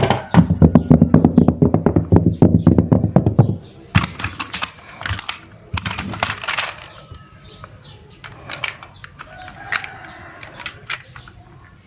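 Rapid ratcheting clicks over a low buzz for about three and a half seconds, then scattered light clicks and taps.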